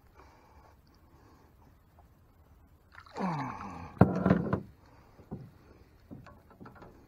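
A hooked snook splashing and thrashing at the surface beside a small skiff as it is brought in and landed, with a sharp, loud splash about four seconds in. Just before that comes a short wordless sound from a man's voice, falling in pitch, and a few light clicks follow.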